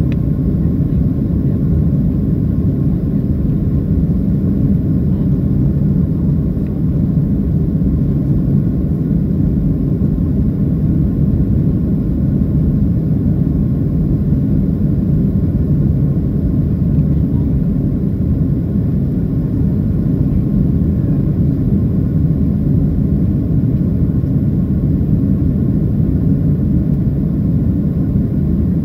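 Cabin noise of a Boeing 737-700 climbing after takeoff, heard from a window seat over the wing: a steady low rumble from its CFM56-7B engines, with a faint steady whine above it.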